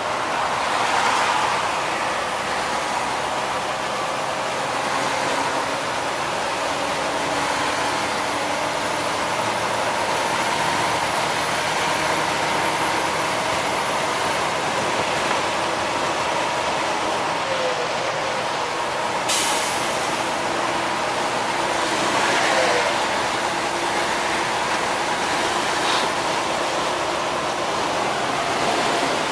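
Steady road noise of a semi truck cruising at highway speed, heard inside the cab, with brief louder swells about a second in and again near two-thirds of the way through.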